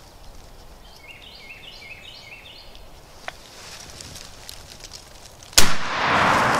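A single shotgun blast at a turkey gobbler, the loudest sound, near the end, followed by about a second of loud rolling noise. Before it, a faint songbird phrase of quick high notes stepping in a run about a second in.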